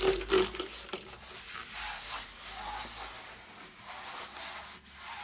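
Scrubbing and wiping strokes as a surface is cleaned: a rubbing noise, loudest in the first half-second, then softer and steadier.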